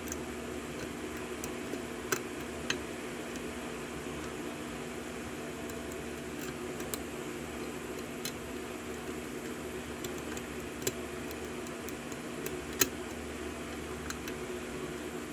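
Sparse small clicks of a pick working the pins of a 6-pin Laird Security Hardware Euro cylinder lock during single-pin picking, about six in all, the sharpest one late on, over a steady background hum.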